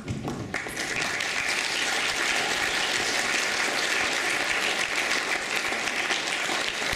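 Audience applause at the end of a stage play, breaking out about half a second in and then continuing as steady, dense clapping.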